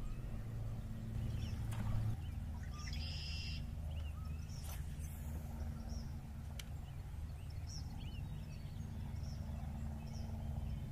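Small birds chirping again and again over a steady low hum, with a brief buzzy high sound about three seconds in.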